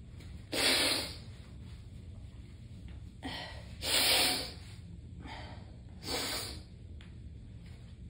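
A person's forceful, noisy breaths during a sneezing fit: three strong bursts about half a second, four and six seconds in, with fainter breaths between them.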